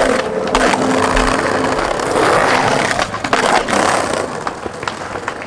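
Skateboard wheels rolling over paving, with a few sharp clacks of the board about three and a half seconds in. The tail of a music track, with held tones and a low beat, dies away in the first two seconds.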